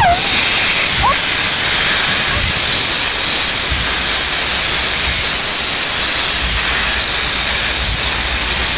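Canadian Pacific 2816, an H1b Hudson steam locomotive, venting steam from its open cylinder cocks with a loud, steady hiss as it rolls slowly past.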